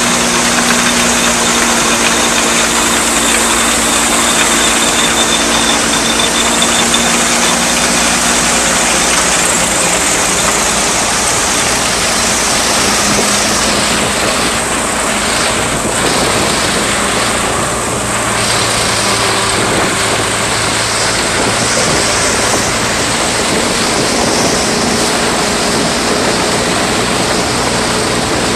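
1939 Case threshing machine running steadily on belt power, with the 1952 Case LA tractor's engine pulling it under load.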